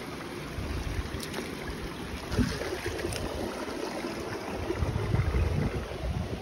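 Shallow stream water running over rocks as sandaled feet wade through it, with a steady low rumble of wind on the microphone.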